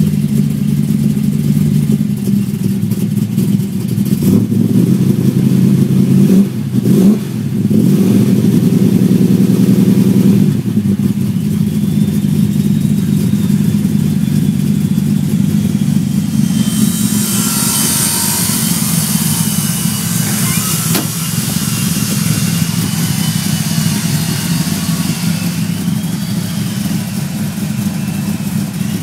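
Big-block Chevrolet V8 in an HR Holden running, blipped and revved a few times in the first ten seconds, then settling back to a steady idle.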